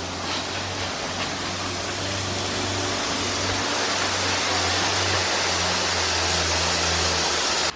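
Water running hard from a bathroom fixture, a steady rushing hiss with a low, even hum beneath it.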